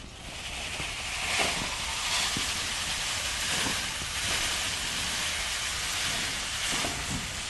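Atmos continuous-discharge magnetic sweeper pushed across the ground, picking up S390 steel shot: a dense, even rattle of many small steel pellets that sets in just after the start and holds steady.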